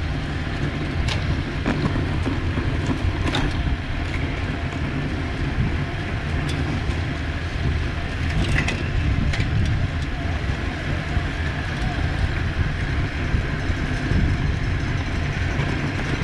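Wind buffeting the microphone of a racing cyclist's camera, a steady low rumble, with a few sharp clicks.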